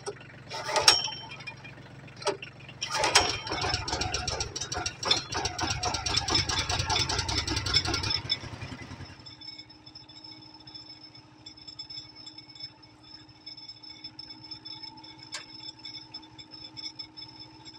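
A 20-year-old diesel tractor's engine, with a loud clank about a second in. The engine runs loud and rattling for about five seconds, then settles to a quieter steady run as the loader carries a log.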